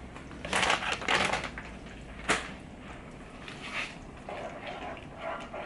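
Kitchen handling sounds: a grated-parmesan packet rustling as it is handled, a single sharp knock about two seconds in, then a spatula working in the frying pan.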